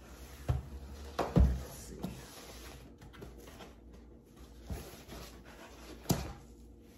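Handling sounds of a fabric-covered drone carrying case on a table: several short knocks and thumps as it is moved and its flap opened, the loudest about a second and a half in.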